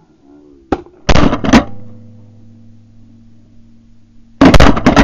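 Shotgun blasts recorded by a gun-mounted camera at the gun itself: two shots close together about a second in, then another blast near the end as a flying duck is fired on.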